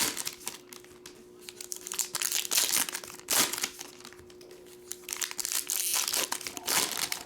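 Plastic wrapping crinkling and rustling in several irregular bursts as it is handled.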